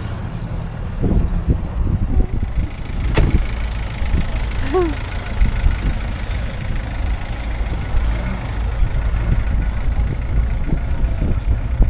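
Car engine idling with a steady low rumble, quiet enough to go unnoticed, with one sharp click about three seconds in.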